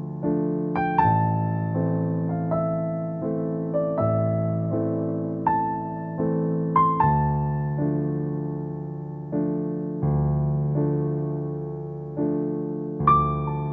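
Background music: a slow, gentle piano piece, notes and chords struck and left to fade.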